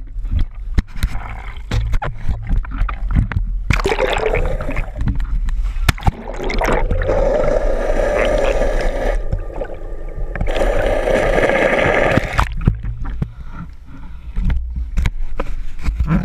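Seawater splashing and sloshing over a waterproof action camera, with sharp knocks of water hitting it. In the middle is a longer stretch of muffled underwater rushing and gurgling while the camera is submerged.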